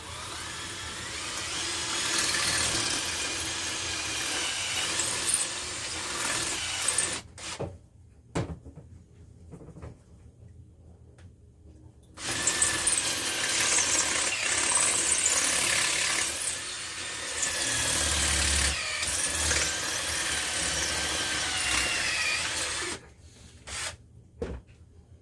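Power drill boring a hole into a wall, running in two long spells of about seven and ten seconds with a pause between; the motor's pitch wavers under load.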